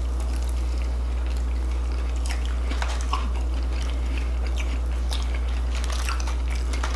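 Close-up chewing and biting of crispy fried food, with scattered crunches and mouth clicks. A steady low hum runs underneath.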